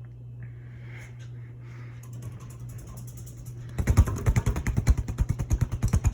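CEC close-mount ceiling fan motor humming steadily. About four seconds in, a loud rapid rattling starts, roughly ten knocks a second, and carries on for about three seconds.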